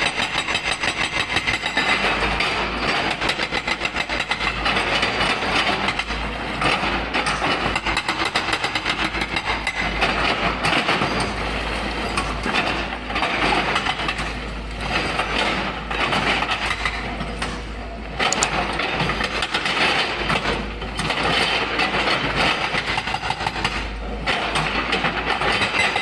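Epiroc (Atlas Copco) hydraulic breaker on a Volvo 210 excavator hammering rock in rapid, continuous blows, over the excavator's diesel engine. The hammering eases off briefly several times between bursts.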